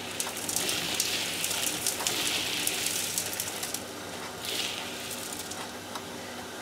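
Old Hoover vacuum cleaner running with a steady hum while its hose sucks ash, soot and bits of unburnt coal out of a miniature steam locomotive's firebox, the debris crackling and rattling through the nozzle in stretches, busiest in the first half.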